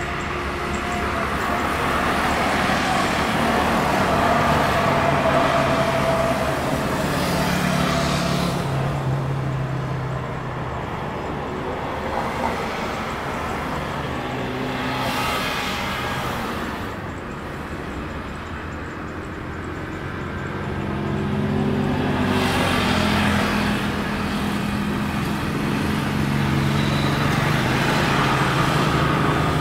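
Twin-engine jet airliner taxiing at idle thrust, a steady rumble that swells and fades a few times, mixed with passing road traffic.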